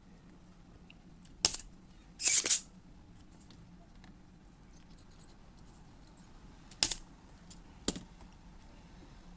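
Sharp clicks and short clatters of small tools and parts being handled during bench repair of a radio-cassette recorder: single clicks about a second and a half in and near seven and eight seconds, a short scrape or clatter about two seconds in, and faint ticks between them, over a low steady hum.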